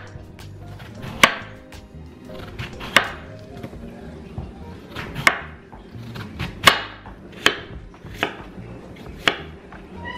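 Kitchen knife cutting a peeled apple on a wooden cutting board: about seven sharp knocks of the blade striking the board, unevenly spaced a second or two apart.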